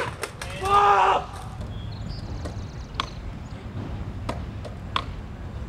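A short shout about a second in, then a few sharp clacks of a skateboard's wooden deck and wheels knocking on concrete steps, spaced a second or so apart, over a steady low street hum.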